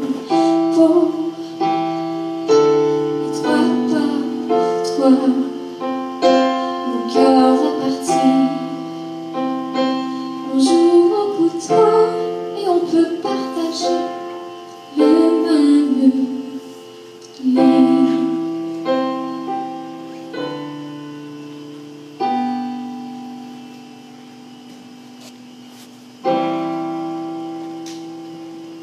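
A young female singer sings over chords on a digital stage piano. About two-thirds of the way through the voice stops, and the piano plays alone with a few slow, held chords that fade out as the song ends.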